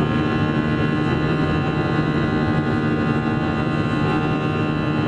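Airbus A320 cabin noise while climbing after take-off: jet engines at climb power and airflow over the fuselage, making a steady rush with a hum of many steady tones that holds level throughout.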